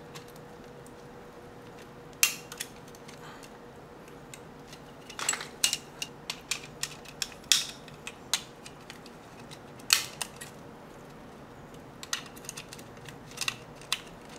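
Screwdriver prying and scraping between a circuit board and a plastic charger case: scattered sharp clicks and snaps of metal on plastic, the loudest about two, five and ten seconds in.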